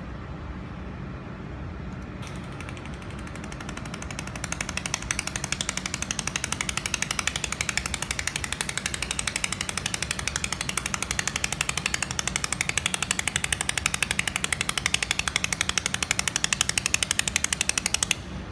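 Pulsed laser welder firing on aluminium: a rapid, evenly spaced train of sharp clicks that starts faintly about two seconds in, grows loud a couple of seconds later and cuts off just before the end, over the steady low hum of the welding machine.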